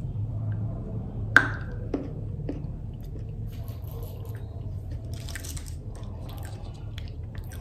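Someone biting into and chewing a chocolate with crunchy bits in it: one sharp snap about one and a half seconds in, a couple of smaller clicks, then soft, crackly chewing over a steady low hum.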